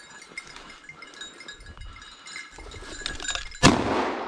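A small bell on a hunting dog's collar tinkling as the dog works through the cover. About three and a half seconds in comes a single loud shotgun shot with a long fading tail.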